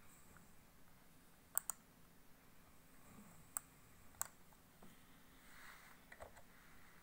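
Computer mouse buttons clicking in an otherwise quiet room: a quick double click, then two single clicks a little over half a second apart, and a few fainter clicks near the end.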